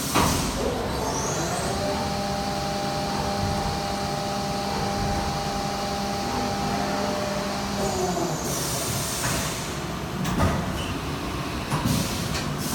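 CNC milling machine drilling holes in a brass spool. The spindle comes up to speed about a second and a half in, holds a steady whine, and winds down near eight seconds, over a constant hiss; a few sharp clicks follow near the end.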